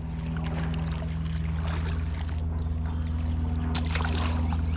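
Boat motor running with a steady, unchanging drone, with faint splashing and clicks of water over it.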